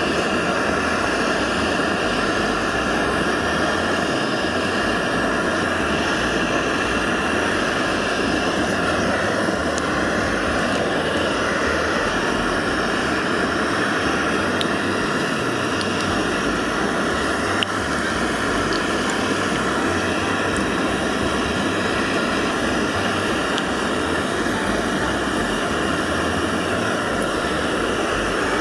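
Portable cassette-gas burner flame running steadily under a cast-iron takoyaki pan, with a few faint ticks from the heating oil. The flame is direct, so the heat is concentrated in the centre cup.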